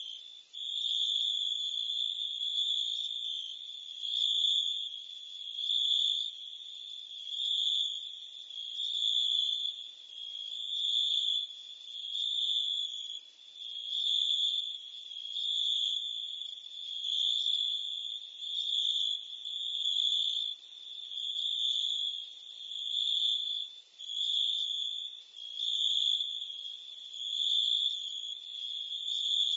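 Insect chorus of crickets and cicadas: a steady, high-pitched chirring that swells and fades about every second and a half to two seconds.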